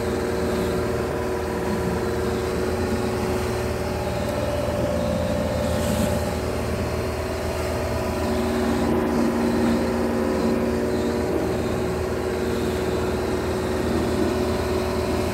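A fishing boat's engine running steadily while the boat is underway, with water rushing along the hull.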